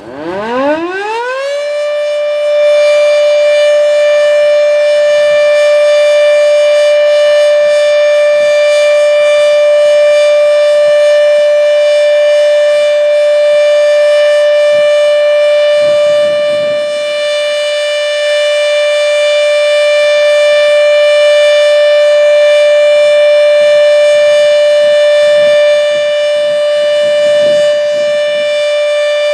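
H.O.R. Siro Drone outdoor warning siren winding up from a low growl to full pitch in about a second and a half, then holding one loud steady tone: the Alert signal.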